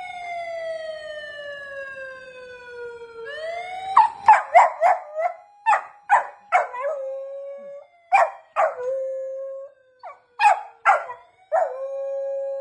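A police car siren wails, its pitch falling slowly. From about four seconds in, a golden retriever howls along: first a quick run of short howls that rise in pitch, then longer held howls with short breaks between them.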